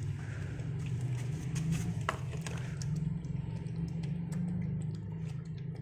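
Puppy licking and nosing at a plate, a string of irregular small wet clicks and scrapes, over a steady low rumble.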